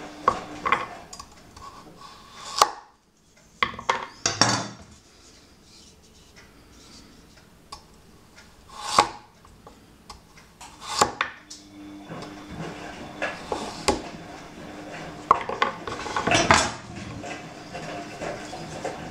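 A 240 mm Aogami Super gyuto kitchen knife slicing rounds off a raw carrot on a wooden cutting board. The cuts come one at a time at uneven intervals, each a brief cut through the carrot ending in a sharp tap of the blade on the board.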